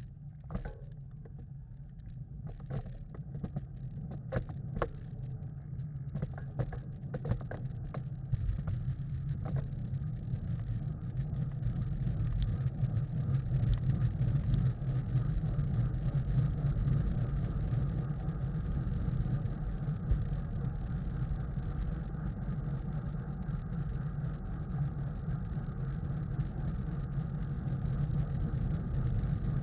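Wind buffeting the microphone of a camera riding in a road bicycle race pack: a low rushing rumble that grows louder over the first dozen seconds as the riders pick up speed, then holds steady. A run of sharp clicks sounds in the first ten seconds.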